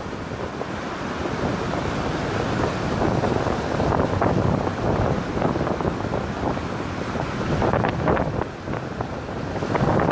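Surf breaking and washing up a pebble beach, with wind buffeting the microphone in gusts.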